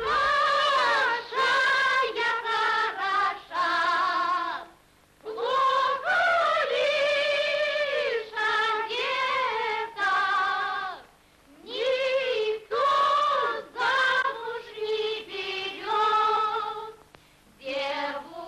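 A woman's voice singing a slow song with vibrato, in several long phrases with short breaks, on an old film soundtrack.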